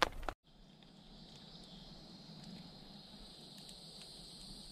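Insects droning faintly and steadily in a high-pitched chorus, after a brief rustle of a foil food pouch at the very start.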